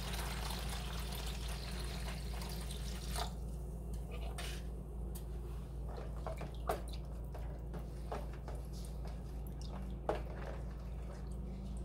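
Cold water poured from a plastic cup into a plastic bowl of dissolved Jell-O, a steady splashing pour for about the first three seconds. Then a metal spoon stirs the liquid, with occasional sharp clicks against the bowl.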